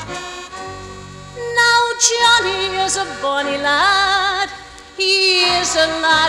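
Scottish showband music: after a moment of held band chords, a singer comes in about a second and a half in, holding long notes with a wide vibrato and sliding up between them, over the band's accompaniment.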